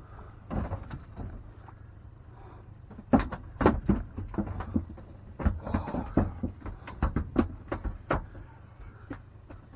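Irregular knocks, clicks and light clatter of gear being handled on a pontoon boat, thickest in the middle, over a low steady rumble.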